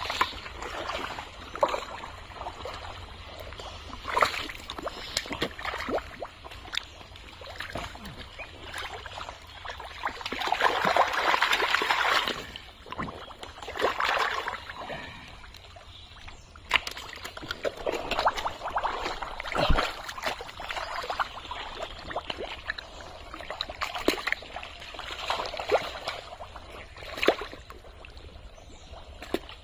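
Hands digging through thick pond mud and muddy water: irregular wet squelches, slaps and splashes, with a longer stretch of splashing about ten seconds in.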